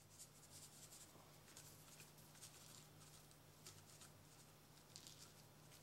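Near silence with faint, irregular soft rustles: a plastic shaker bottle of egg-cure powder being shaken over chunks of salmon roe on a paper towel. A faint steady low hum underneath.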